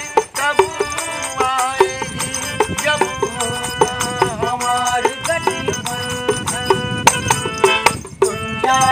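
Harmonium playing a folk melody with a small hand frame drum with jingles struck in a steady rhythm, and a voice singing in places.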